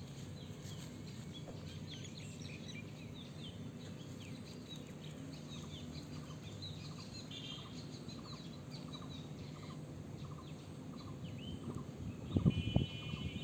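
Small birds chirping and calling in the background, many short high chirps with one call repeating about twice a second, over a steady low hum. About a second before the end come a few louder knocks and rustles.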